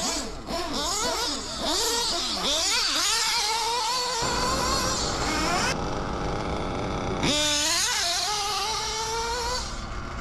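HOBBYTECH B213 two-stroke nitro engine in an RC buggy, revving up and down in quick rising and falling sweeps as the throttle opens and closes. In the middle it holds at high revs for a few seconds, then climbs sharply again.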